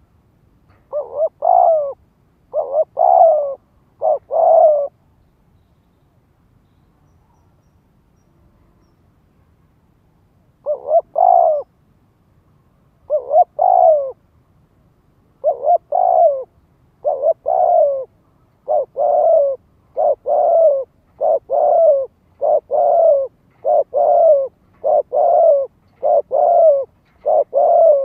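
Spotted dove cooing, each coo a short note run straight into a longer one. Three coos come in the first few seconds, then after a pause two more, then a steady run of about one a second through the second half. This is the decoy dove's call, used to provoke wild doves and draw them in.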